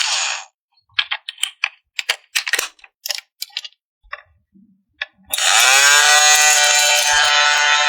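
A run of quick, irregular plastic clicks and snaps, about a dozen over three seconds, as toy playset parts are handled and fitted together. Background music stops just before and comes back in about five seconds in.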